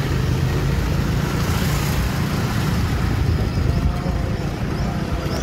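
Steady low rumble of wind buffeting the microphone and a motorbike's engine running during a ride along a town street.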